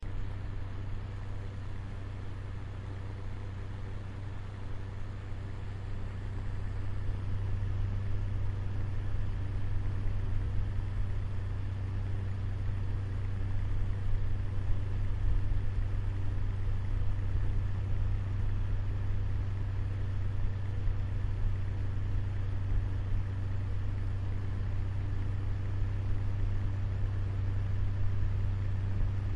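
Electric fan running with a steady low motor hum and a rush of air; it gets a little louder about six or seven seconds in, then holds steady.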